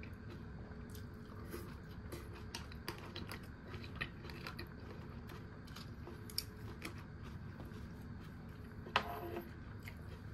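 Close-up eating sounds of someone eating loin cutlet curry: chewing with scattered small crunches and mouth clicks, the loudest crunch about nine seconds in, over a low steady background hum.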